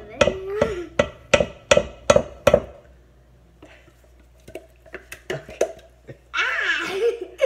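A spatula knocking and scraping in a metal can of pumpkin purée held over a steel mixing bowl. About six sharp knocks come roughly every half second, then softer clicks, and a voice cries out briefly near the end.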